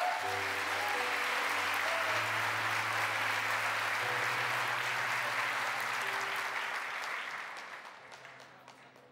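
A congregation applauding, fading out over the last two seconds, with instrumental music holding long low notes underneath.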